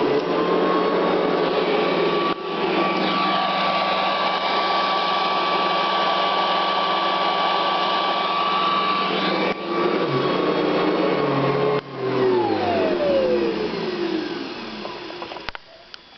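Hoover Convertible upright vacuum with a CWP brush roll running with a steady motor whine, dipping briefly three times. About twelve seconds in it is switched off and the motor winds down, its pitch falling over about three seconds.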